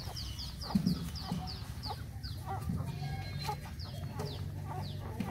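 Chickens: a run of short, high, falling peeps, about two to three a second, with a few low clucks, the loudest about a second in, over a low steady hum.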